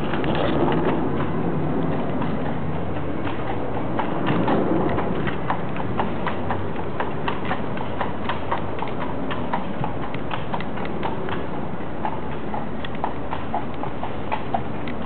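Horse's hooves clip-clopping at a walk on a paved road while pulling a carriage, a few hoofbeats a second, over a steady low rumble. The hoofbeats stand out more clearly after about five seconds.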